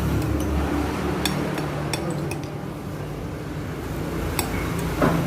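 A spoon clinking against a plate in irregular, sharp clinks while kupat tahu (rice cake and tofu in thick peanut sauce) is stirred.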